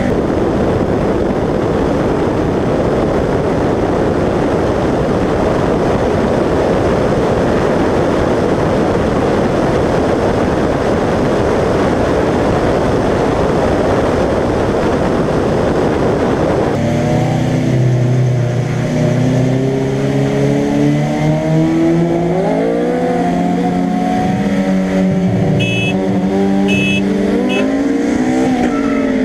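Wind rushing over a car-mounted microphone at speed, with the engine buried under it. After an abrupt cut about two-thirds of the way in, a Honda B-series four-cylinder engine is heard clearly under hard acceleration, its pitch climbing and falling back as it revs through the gears. There are a few short high beeps near the end.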